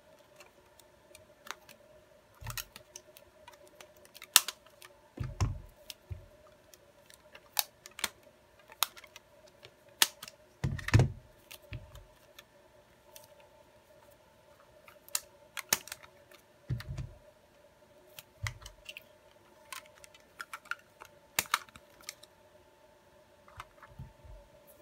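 Rubber bands being stretched and snapped around a smartphone and the phone being handled on a rubber mat, giving irregular sharp clicks, taps and dull thumps. The bands clamp a freshly glued replacement screen while the adhesive sets.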